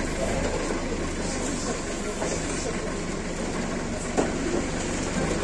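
Forklift engine running steadily with a low hum, with a single sharp knock about four seconds in.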